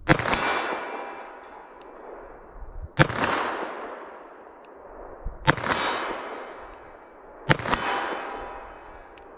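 Four 10 mm shots from a Smith & Wesson 610 revolver, fired about two to three seconds apart. Each shot is followed by a long ringing decay lasting about two seconds.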